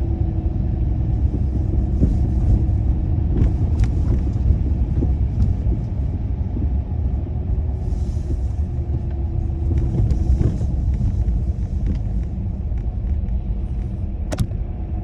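Car driving, a steady low rumble with a faint hum and a few light clicks.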